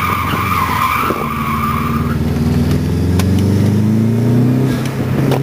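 Saab 9-2X driven hard through autocross cones: its tyres squeal for about the first two seconds while cornering, then the engine pulls with its pitch climbing steadily, dropping back near the end.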